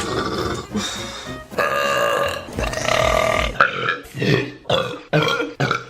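A woman belching repeatedly: long, drawn-out pitched burps for about the first three and a half seconds, then a quick run of short burps.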